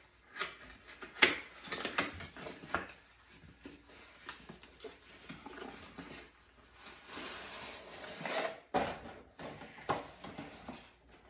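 Small clicks, clinks and rustling as a metal-and-crystal bag charm and its packaging are handled, with irregular sharp taps, the loudest about a second in, and a stretch of soft rustling near the end.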